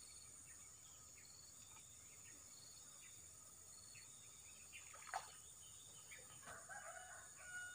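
Faint insect chorus: a steady high drone with a short chirp repeating about once a second. A single sharp click sounds about five seconds in, and a few faint broken calls come near the end.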